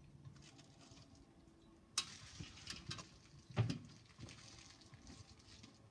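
Wood fire crackling in a steel mesh fire pit, with scattered small clicks and a sharp pop about two seconds in. A heavy thump of a footstep on the wooden deck boards follows a little later and is the loudest sound.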